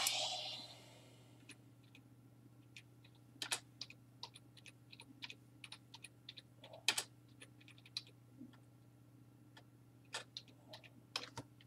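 Faint, irregular clicks of typing on a computer keyboard, over a low steady hum.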